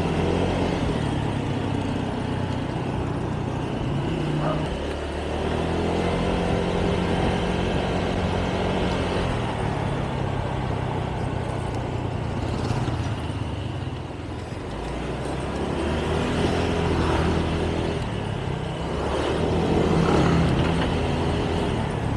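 Honda Airblade scooter's single-cylinder engine running while riding, its pitch rising and falling as the throttle opens and closes, with wind and road noise.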